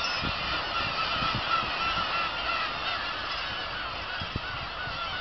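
A large colony of black-tailed gulls calling continuously, many birds' short cries overlapping into one dense chorus.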